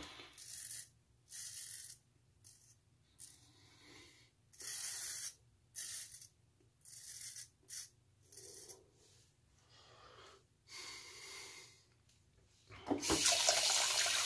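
Shaving brush painting lather onto the face in short, irregular bristly strokes of a second or less with gaps between. About a second before the end, a tap is turned on and water runs steadily into the sink.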